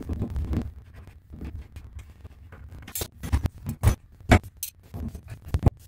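Hand tools clanking and scraping while a plumber works on a stuck tub drain fitting. There are irregular sharp metal knocks, several of them in the second half, over low scraping and rustling.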